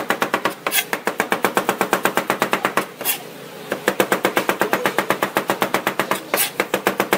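Chef's knife chopping onions fast on a cutting board: a rapid, even run of blade strikes on the board, with a brief pause a little after three seconds before the chopping picks up again.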